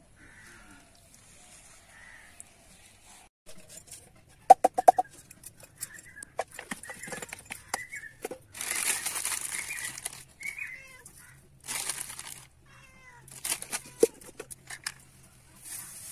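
Dry straw rustling and crackling in several bursts as it is handled, with sharp clicks and knocks in between and short, high animal calls.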